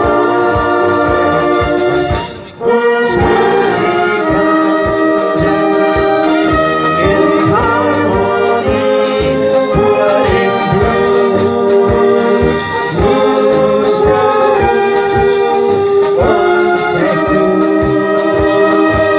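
Live brass band music: held brass chords over a steady drum beat, with a short break about two and a half seconds in.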